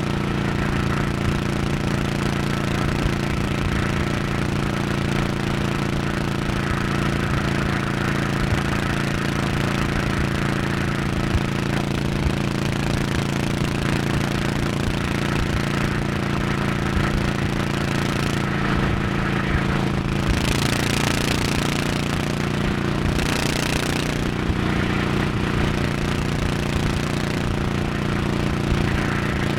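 Honda 1100cc motorcycle engine running steadily at highway speed, heard from the rider's position. About two-thirds of the way through come two brief rushes of hiss.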